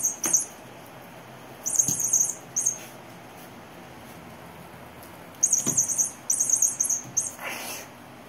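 A cat wand toy's mouse lure giving high-pitched chirping squeaks in short bursts, several clustered near the end, with a couple of soft thumps on the wooden floor as the cat pounces.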